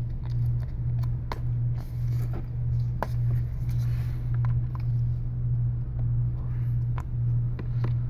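A flat tool scraping and clicking against an iPad mini 3's frame as leftover adhesive and glass are cleared off, a series of short light scrapes and ticks. Under it a steady low hum runs throughout and is the loudest sound.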